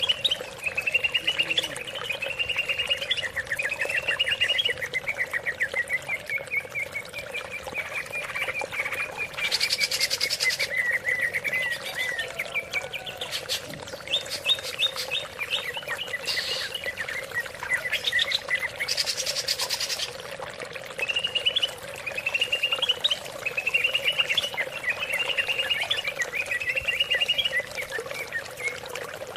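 Greater green leafbird (cucak ijo) singing long phrases of fast, varied chattering notes, with a few short hissing bursts in the middle. A steady background drone runs underneath.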